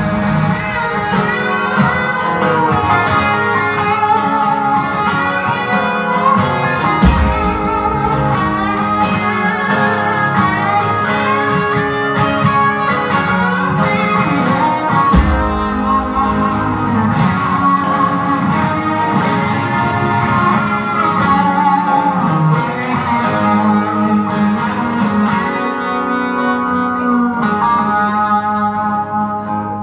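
Live country-rock band playing, with guitars prominent over drums and keyboards; the music dies down near the end.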